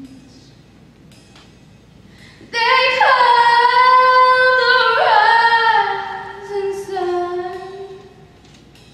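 Young female solo singer singing into a handheld microphone: after a pause of about two and a half seconds she holds long notes, scooping up in pitch twice, then steps down to lower notes and fades out.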